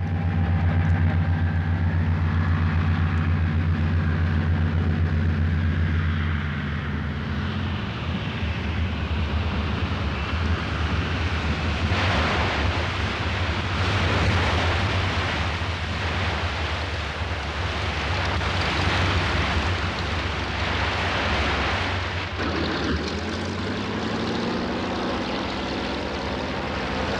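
Twin radial engines of a PBY Catalina flying boat droning steadily, then a long rush of water spray as the hull lands and skims across the river. Near the end the engine note comes back and rises as it taxis.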